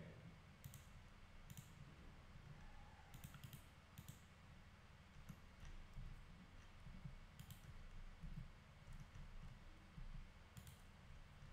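Near silence with a handful of faint, scattered clicks from computer input, over a low, steady hum.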